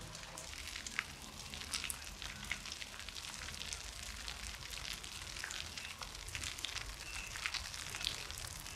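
Dry grass and scrub burning, crackling with many irregular sharp pops over a low steady rumble.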